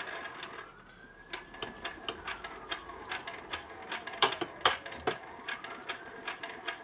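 Cam gears in a 1961 Harley-Davidson XLCH Sportster gearcase being worked back and forth by hand, their teeth clicking and clacking irregularly as a tight gear mesh is freed up.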